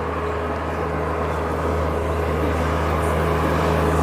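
A motor vehicle's engine running steadily, its low drone slowly growing louder.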